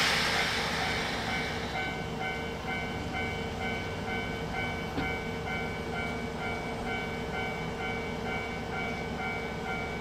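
Japanese level-crossing warning signal ringing on and on, about two dings a second, beside a stopped electric train that gives a steady hum. A hiss fades out in the first second or two.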